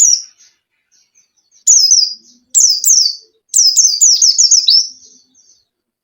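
Pleci (white-eye, Zosterops) singing: quick phrases of high, down-slurred chirping notes, a pause of over a second near the start, then three phrases about a second apart, the last and longest made of a rapid string of notes.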